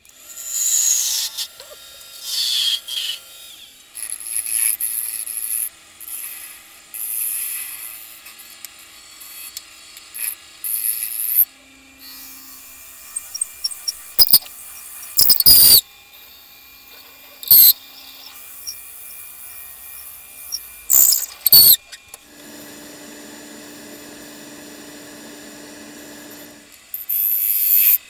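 Wood lathe turning and drilling a small cherry blank, played back fast: a string of short, loud cutting and drilling bursts with high squeals and pitch sweeps. A steadier stretch of running with a low steady hum comes near the end.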